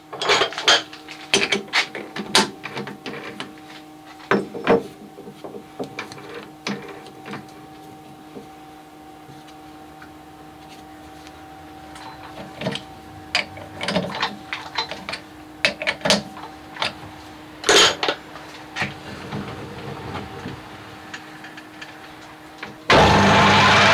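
Scattered metallic clanks and knocks as a steel bar is fitted into a lathe chuck and the jaws are tightened, over a steady hum. About a second before the end, the lathe starts and runs at a loud, steady level.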